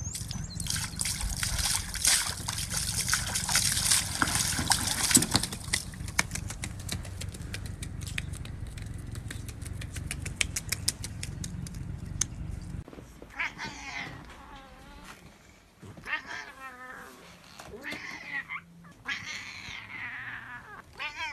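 A domestic goose splashing in a bucket of water. About thirteen seconds in, a cat meows about four times, in long calls that waver in pitch.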